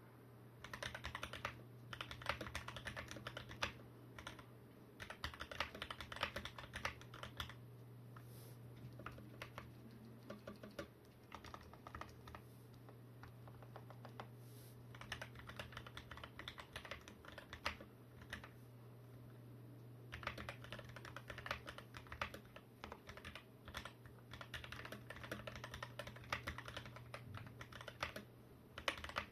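Typing on an XD84 Pro mechanical keyboard with lubed Gateron Black linear switches: several fast runs of key presses, separated by short pauses with only a few scattered keystrokes.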